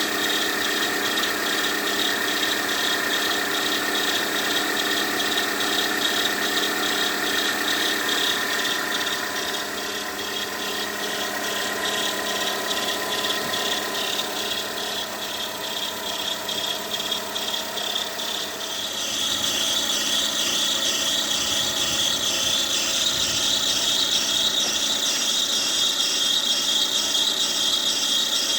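Peugeot 207's ET3J4 1.4-litre petrol engine running, with a high, pulsing squeal from the belt and pulley drive that grows louder and shriller about two-thirds of the way through. It is the sign of a failing bearing in one of the belt rollers or the water pump; the squeal comes on about a minute after a cold start and dies away as the engine warms.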